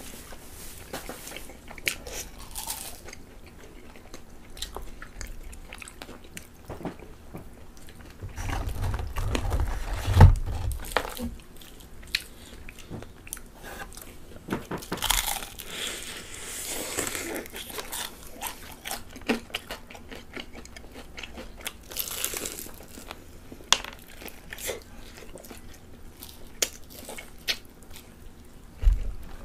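Close-up crunching bites and chewing of fried chicken with a crisp coating, in short crackling bursts. A dull low thump about ten seconds in is the loudest sound.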